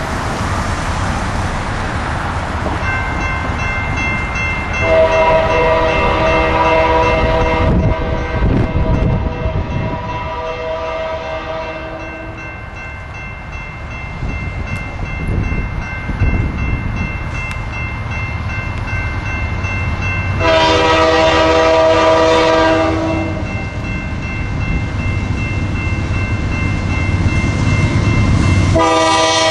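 Norfolk Southern diesel freight locomotive blowing its multi-note air horn in three long blasts, about five, twenty and twenty-nine seconds in, with fainter horn notes held between them, over the steady rumble of the passing locomotive and its coal train.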